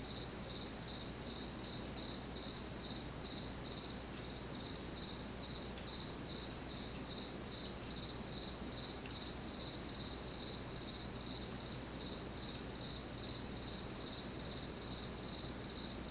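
A cricket chirping in an even, unbroken rhythm of short high chirps. A few faint sharp clicks from a lock pick working the pins of a pin-tumbler lock come through under it.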